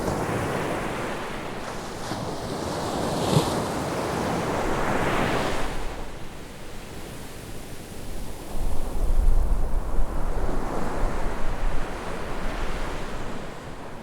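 Sea waves breaking and washing up a beach, swelling and ebbing: one surge builds and drops off about six seconds in, and another follows. Wind buffets the microphone with a low rumble through the second half.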